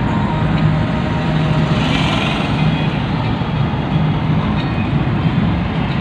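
Steady cabin noise of a Tata Tigor car driving at highway speed: tyre and road rumble with a low engine hum, and a brief rise of hiss about two seconds in.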